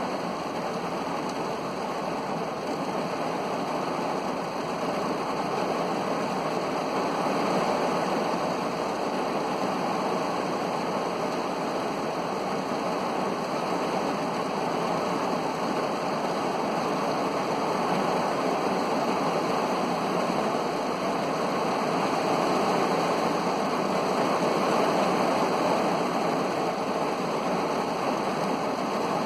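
Heavy rain drumming on a car's roof and windows, heard from inside the car as a steady, dense hiss.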